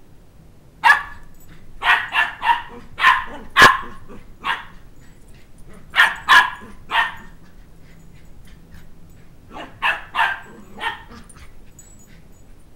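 Two-month-old Sheltie (Shetland Sheepdog) puppy barking in play while chasing for its toy: short yapping barks in three bouts, about a dozen in all, with the fastest run in the first few seconds.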